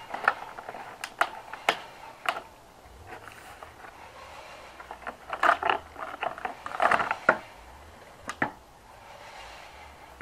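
Offset tin snips cutting into vinyl siding: a series of sharp snips, a few single ones in the first couple of seconds, then quick clusters of cuts in the middle and a pair near the end.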